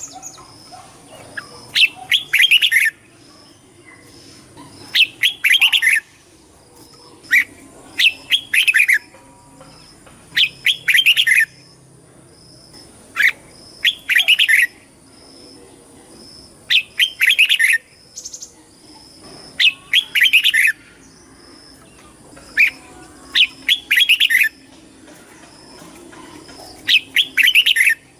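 Red-whiskered bulbul singing short, loud warbled phrases, one every two to three seconds.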